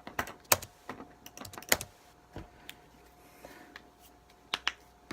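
A dozen or so sharp, irregular clicks, spaced unevenly. They are small hard taps, like the layers of a puzzle cube being turned or keys being pressed.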